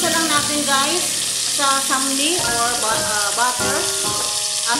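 Cubes of beef sizzling as they fry in butter. Background music with a melody plays over it.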